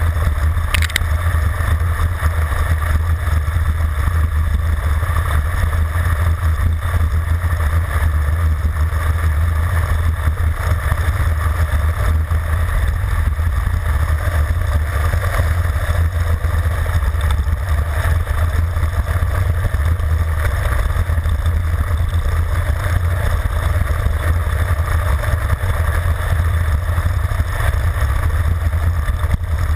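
Steady loud rumble of wind buffeting a handlebar-mounted action camera's microphone on a road bike descending at high speed, with tyre hiss on the asphalt underneath.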